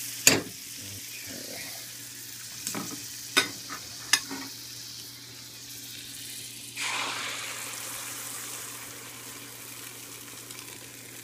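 Butter sizzling in a small wok on a gas burner, with a few sharp clinks in the first half. About seven seconds in, beaten eggs are poured into the hot butter and the sizzle jumps louder, then slowly settles.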